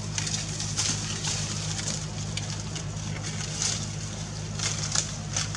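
Leaves and twigs rustling and crackling in short, irregular bursts as a macaque climbs through a tree, over a steady low hum.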